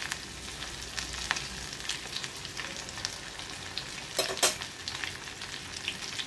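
A coated piece of rohu fish frying in hot oil in a small kadai: a steady sizzle with scattered crackling pops, and a louder burst of crackles about four seconds in.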